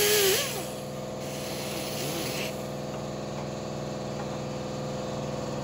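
Pneumatic 90-degree die grinder with a small abrasive disc scrubbing old gasket off the engine block, its pitch wavering with the load. It is let off about half a second in, and a softer hiss dies away over the next two seconds, leaving a steady low hum.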